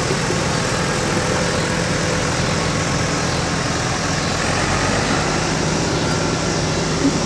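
Engine idling steadily, a low even hum under a continuous noise.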